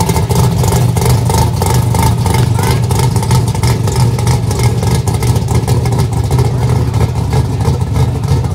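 Loud, steady exhaust of modified street cars rolling slowly past, the low engine rumble holding with no sharp revs.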